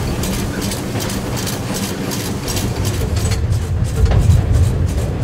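Orenstein & Koppel 0-4-0 steam locomotive running, heard from its cab: quick, even exhaust beats over a steady low rumble and rattle of the cab and wheels. The rumble swells about four seconds in as the locomotive runs onto a bridge.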